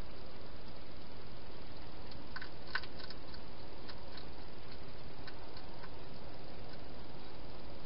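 Hedgehog chewing food from a bowl: faint, irregular crunching clicks, most between about two and a half and four seconds in, over a steady hiss from the camera's microphone.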